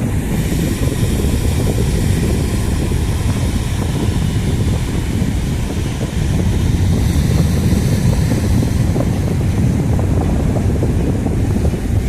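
Strong wind buffeting the microphone, a steady low rumble with no break.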